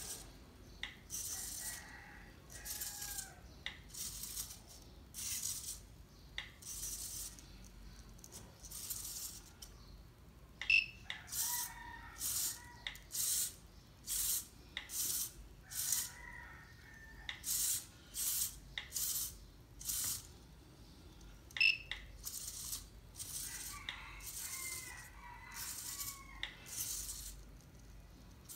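Small hobby servo motors in a 3D-printed quadruped robot dog whirring in short bursts, about one a second, as its legs move. The bursts are irregular and come thickest in the middle stretch.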